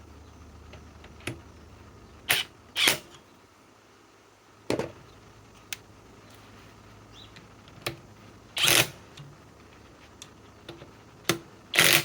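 Handling noise from tools and hardware: about a dozen separate clicks and clunks at irregular intervals, the loudest two near the middle and at the end. None of it is the continuous hammering of an impact wrench running.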